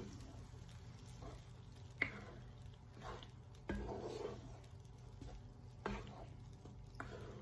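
Wooden spatula stirring and scraping a thick tomato and chilli paste frying in oil in a nonstick pan, with soft squelching. A sharp tap about two seconds in and knocks near four and six seconds, over a steady low hum.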